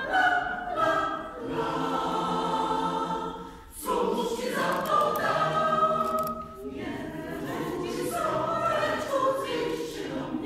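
Mixed choir of men and women singing unaccompanied in several parts, holding chords, with a short break between phrases about four seconds in.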